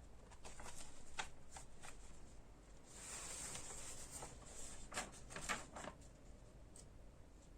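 Faint handling sounds: a few light clicks and taps, with a soft rustle a few seconds in, as small objects or paper are moved about.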